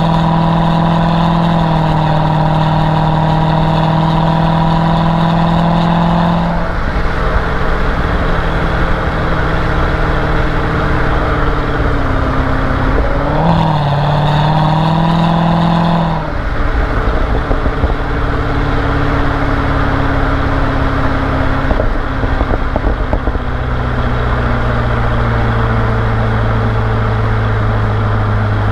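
Chevrolet Corvette C6 V8 running at steady revs, a drone holding one pitch. After about six seconds it gives way to a louder rushing noise, with a brief waver in pitch midway. Near the end it settles into a lower steady drone.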